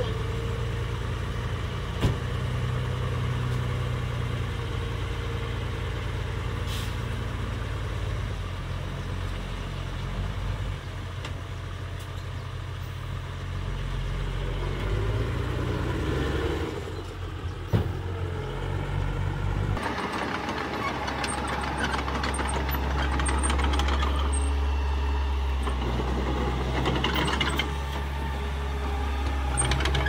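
Diesel engine of a small dump truck running steadily while its bed tips up to pour out soil. About twenty seconds in, the sound changes to a small Mitsubishi crawler bulldozer's diesel engine, with its tracks rattling.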